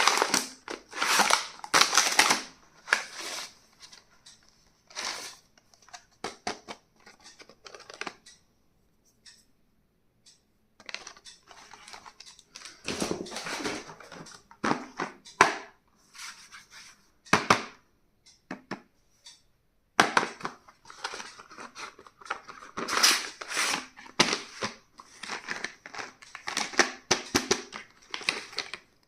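Stationery packaging being handled and opened: plastic and paper wrapping crinkling and tearing, with sharp clicks and taps of small items, in bursts with short pauses between.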